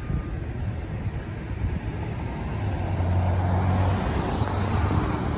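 Road traffic: a car drives past close by, its engine hum and tyre noise growing louder from about halfway through.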